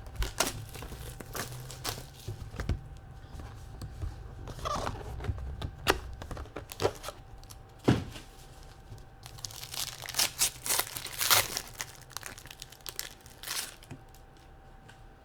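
A sealed trading-card box and its packs being torn open by hand: plastic wrapper ripping and crinkling, with scattered sharp crackles and soft knocks of cardboard and cards being handled. The tearing is busiest a little past the middle and dies down near the end.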